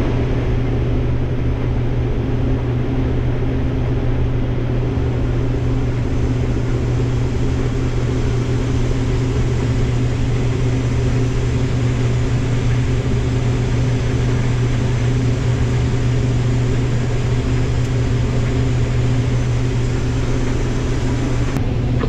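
Case IH 6088 combine running steadily under load while harvesting corn, heard from inside the cab: a constant low drone.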